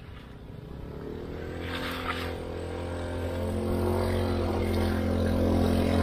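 Small automatic motor scooter's engine running at a steady pitch as it rides through a shallow river crossing, growing louder as it comes closer, with water splashing around its wheels.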